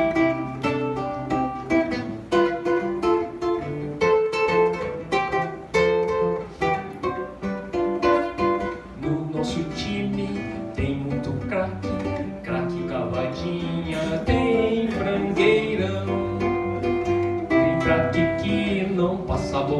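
Music: an acoustic guitar strumming chords in a steady rhythm, an instrumental passage of a song.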